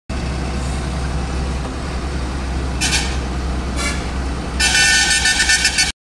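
A heavy truck's engine drones steadily in the cab while a horn sounds: two short blasts a second apart, then a louder, longer blast that pulses rapidly and cuts off abruptly.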